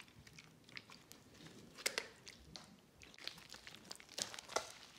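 Faint, irregular wet clicks and squelches of a sticky soap-and-salt water slime being stretched and squeezed by hand, getting busier toward the end.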